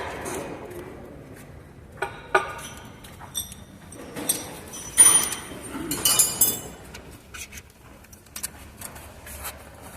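Hand tools and metal engine parts clinking and tapping during timing-chain work on a Swift diesel engine: a scattered series of sharp metallic clinks, several with a short ring, loudest about five seconds in.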